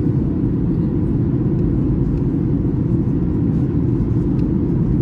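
Steady low cabin rumble inside a Boeing 737-800 on descent: the noise of its CFM56 engines and the air rushing past the fuselage, even throughout.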